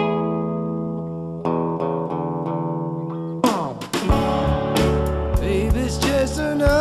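Background music: ringing strummed guitar chords, then about halfway through an abrupt change to a fuller band with drums and bass.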